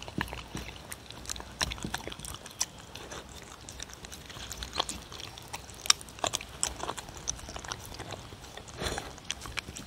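Dog eating turkey meat from a wooden bowl, picked up by a microphone right next to it: irregular wet chewing and biting clicks with teeth and tongue knocking on the bowl.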